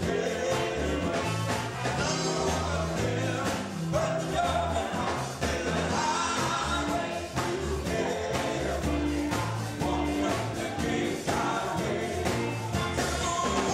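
Male gospel quartet singing into microphones over amplified guitar accompaniment, a live performance with a steady beat.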